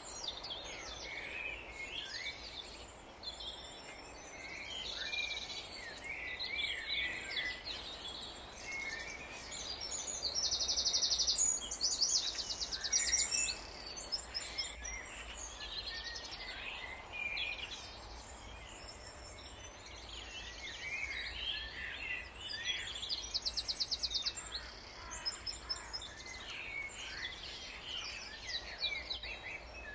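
Several wild songbirds singing and calling among the trees, a steady mix of short chirps and whistles, with fast trills about a third of the way in and again about three quarters through.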